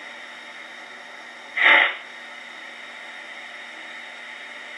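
QSI Titan sound decoder in a Bachmann C-19 model steam locomotive playing steam-locomotive sounds: a steady hiss, with one short, louder burst of hissing about two seconds in.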